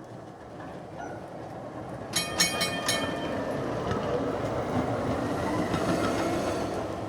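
Amsterdam tram (streetcar) approaching and passing, its wheels clattering over rail joints in a quick cluster of clicks about two seconds in, then a rumble of steel wheels on rail that builds to its loudest about six seconds in and starts to fade.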